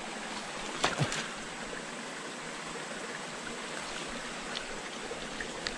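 A small, shallow stream running steadily over stones, with a couple of short knocks about a second in.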